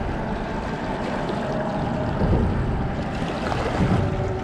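Wind rumbling on the microphone over water lapping against the rocks of the shoreline, a steady noisy wash with no clear rhythm.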